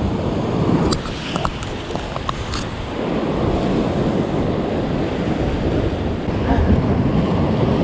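Wind buffeting the microphone over surf washing against the rock ledges, a steady low rumbling noise. A few small clicks sound between about one and two and a half seconds in.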